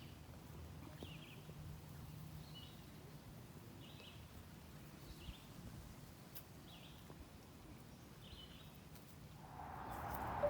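Faint outdoor ambience with a bird chirping, short high chirps about once every second or so. A rising whoosh swells in during the last second.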